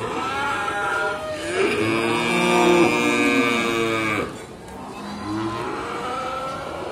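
Cattle mooing: a call trailing off about a second in, a long loud moo from about one and a half to four seconds in, then a quieter moo near the end.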